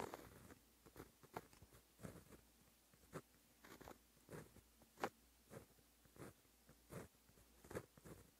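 A pen tip scratching on paper as it writes Japanese characters in white ink: faint, short, separate strokes, roughly one or two a second, with a sharper stroke about five seconds in.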